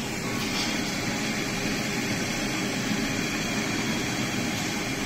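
Steady rushing hum of a restaurant's ventilation, an even whoosh with a faint low drone and no distinct events.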